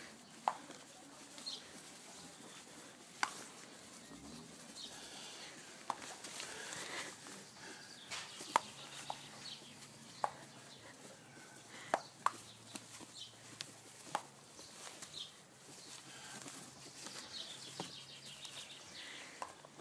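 A small terrier snapping at scattered grass seed: faint, sharp clicks of its jaws every second or two, over light pattering on the soil, with faint bird chirps in the background.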